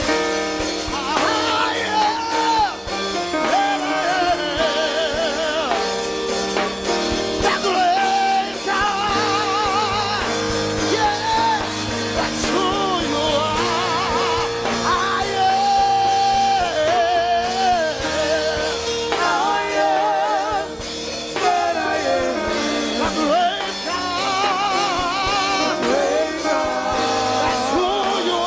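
Church choir singing a worship song with instrumental accompaniment: wavering sung melody lines with heavy vibrato over steady held chords.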